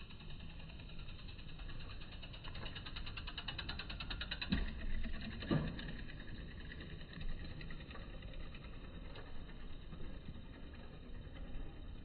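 Low street rumble with a passing vehicle: a rapid, evenly spaced ticking builds a few seconds in, then two low thumps about a second apart.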